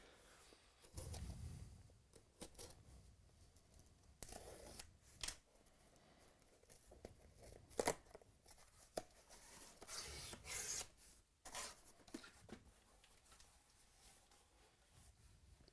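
Faint rustling, scraping and tearing of packaging as a sealed box of trading cards is cut and opened, with scattered clicks and a louder rasping stroke about ten seconds in.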